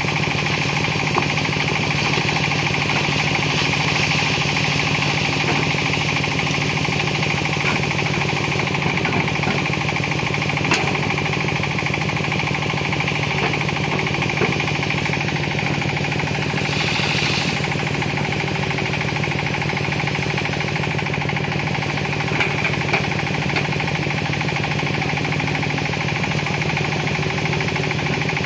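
Hitachi ZX200 excavator's diesel engine running steadily under work, with a few sharp knocks and a brief hiss about two-thirds of the way through.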